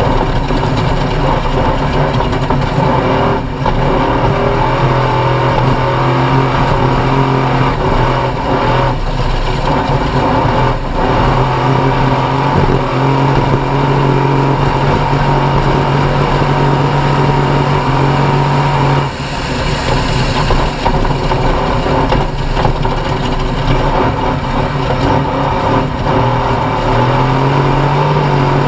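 Off-road race vehicle's engine running hard at mostly steady high revs, with brief dips where the throttle lifts and a few small shifts in pitch.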